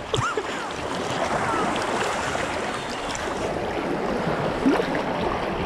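Steady rush and slosh of fast-moving river water right around a camera held at the water's surface, as a swimmer floats feet-first through the current.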